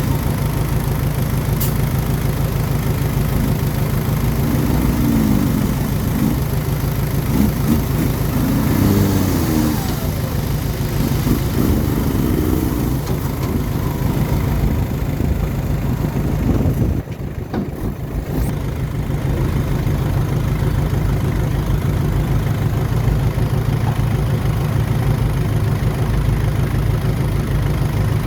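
Diesel engine of a small D20 bulldozer running steadily under work, with some wavering rising and falling tones in the middle. The sound dips and breaks briefly about seventeen seconds in.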